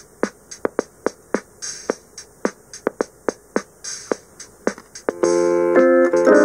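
An electronic drum-machine beat, with sharp hits and a hiss-like hi-hat on top. Keyboard organ chords come in about five seconds in.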